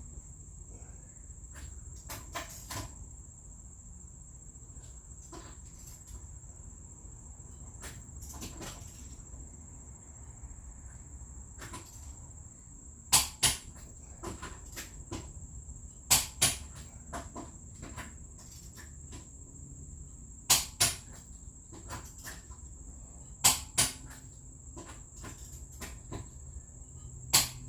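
Click-type torque wrench breaking over as lug nuts on a C7 Corvette's wheel reach torque: five sharp double clicks, a few seconds apart, in the second half, with fainter ratchet-like clicks before them. A steady high-pitched insect-like trill sounds underneath.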